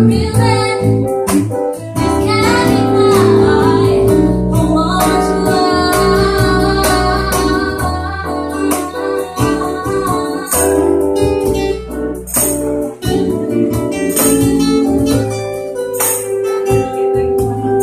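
A woman singing a slow song live with a small band of acoustic guitar, electric bass and keyboard.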